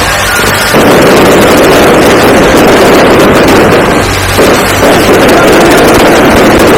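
Fireworks barrage going off in quick succession, a continuous dense crackling rumble that grows louder under a second in and briefly eases around the middle.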